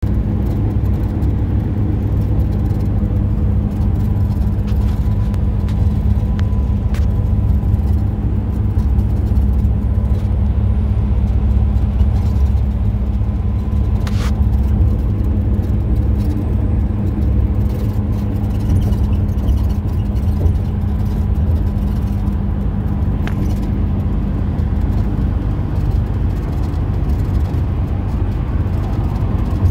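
Steady low drone of a bus's engine and tyres at highway speed, heard inside the cabin, with a couple of brief clicks or rattles.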